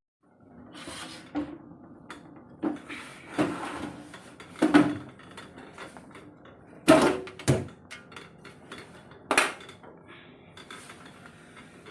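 Hands working on a desktop PC case and its parts: an irregular string of clicks, knocks and scrapes of metal and plastic, with the loudest knocks about five and seven seconds in.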